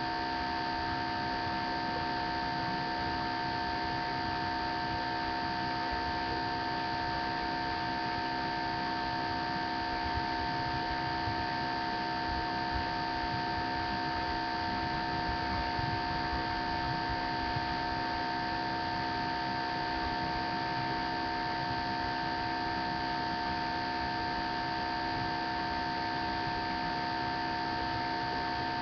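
Steady electrical hum with a higher whine made of several fixed tones over a light hiss, never changing in pitch or level.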